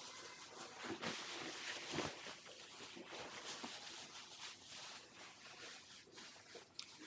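Faint crinkling and rustling of disposable plastic gloves and plastic food packaging being handled, with scattered small irregular clicks and taps.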